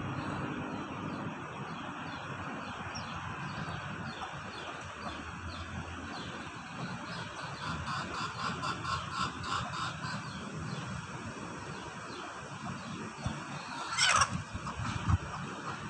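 Rural outdoor ambience with a steady background hiss and a run of rapid, evenly repeated chirping from about seven to ten seconds in. About fourteen seconds in comes a short loud burst, the loudest sound in the stretch.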